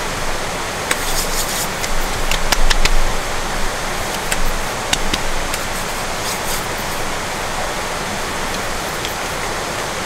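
Steady rushing water noise, with light clicks and rustles of small items being handled, the loudest about a second in, around two and a half seconds in and about five seconds in.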